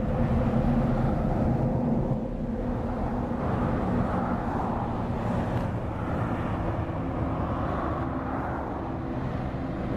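Heavy-truck highway traffic: diesel engine drone and tyre noise from passing trucks and cars. A truck's steady engine drone fades about two seconds in, then tyre and engine noise builds again as a Scania R-series V8 tractor unit approaches.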